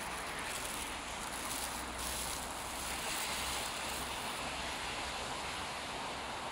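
Steady rushing outdoor street noise, with a low rumble that fades out about four and a half seconds in.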